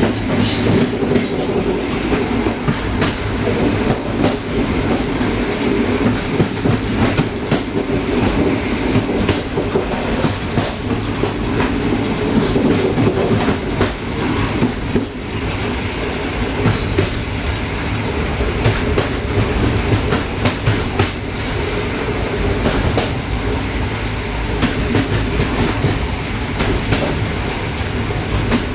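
Passenger train wheels rolling over jointed track: a steady rumble with many short clicks as the wheels cross the rail joints.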